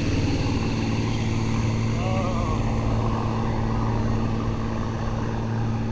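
Parasail tow boat's engine running as a steady low drone, with wind buffeting the microphone.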